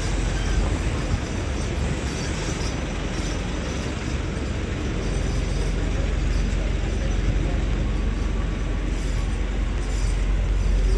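Steady city street noise, mostly the rumble of passing traffic, growing a little louder toward the end.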